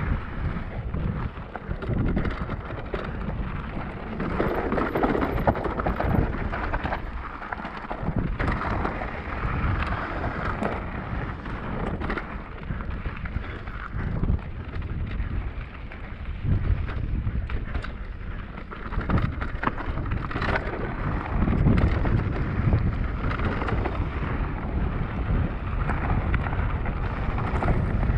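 Wind buffeting the microphone over the clatter of a Cube Stereo Hybrid 160 e-mountain bike ridden on a rough trail, with frequent knocks and rattles from the bike and tyres.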